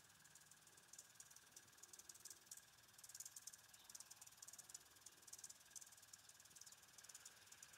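Near silence: faint outdoor ambience with high, rapid ticking in short repeated runs and a faint steady high tone.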